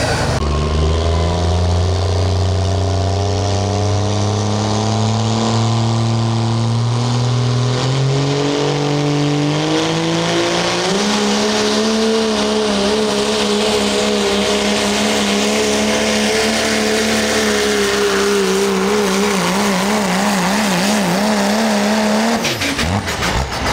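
Diesel pickup engine of a pro stock diesel 4x4 pulling truck running at full throttle as it drags a weight-transfer sled. The engine note climbs slowly over the first ten seconds or so, then holds high and wavers, and drops away near the end.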